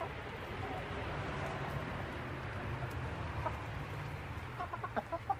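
Chickens clucking, with a quick run of short clucks near the end, over a steady low hum.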